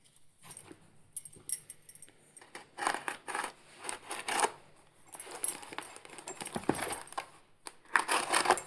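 A parcel's packaging being handled and pulled open: crinkly rustling and scraping in several bursts with short quiet gaps between.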